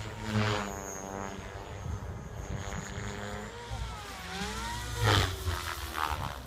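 JR Forza 450 electric RC helicopter flying on EDGE 353 mm main rotor blades: a rotor and motor whine that slides up and down in pitch. It swells into a loud blade whoosh twice, about half a second in and about five seconds in.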